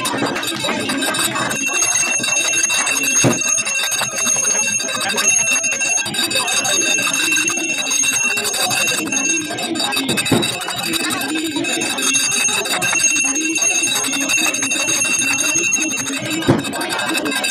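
Brass puja hand bell rung continuously during an aarti, its ringing held as steady high tones, over voices singing the aarti and hands clapping along.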